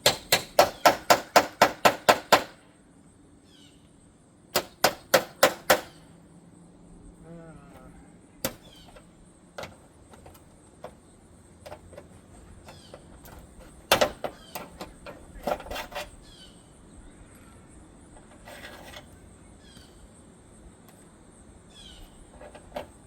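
Hammer blows on the gutter hardware in quick runs, about four a second: some ten strikes in the first two and a half seconds, six more around five seconds in, then scattered single knocks with a short flurry about fourteen to sixteen seconds in.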